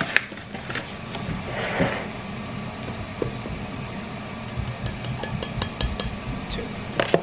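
Scattered light clicks and clinks of household objects being handled, with a brief rustle about two seconds in, over a steady low hum.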